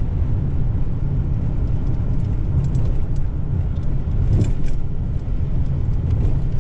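Steady low rumble of a car driving on a rough road, with a few faint rattles and clicks about halfway through.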